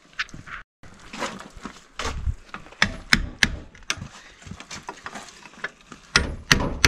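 Hammer striking a chisel or drift against a car's gearbox casing: sharp metal strikes, three in quick succession about three seconds in and more near the end, with scraping in between, knocking loose a piece that has been cut with an angle grinder.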